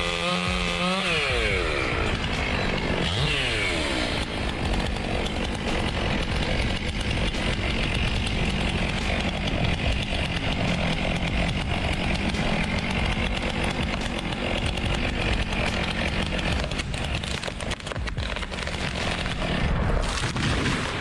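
Chainsaw cutting wood under load. Its engine pitch sweeps down twice in the first few seconds, then it runs steadily at high revs through the cut.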